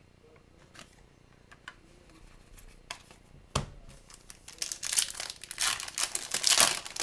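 Foil wrapper of a hockey card pack crinkling and tearing as it is opened, with a few light ticks and a sharp snap about three and a half seconds in before the crinkling builds up loudest over the last two seconds.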